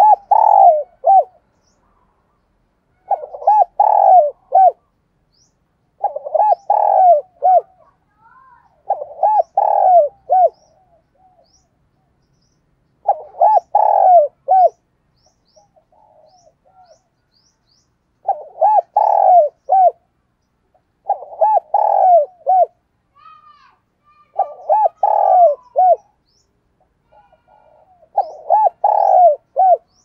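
Spotted dove cooing its territorial song: a loud phrase of several rolling coos repeated about every three seconds, nine phrases in all. Faint high chirps of small birds sound between the phrases.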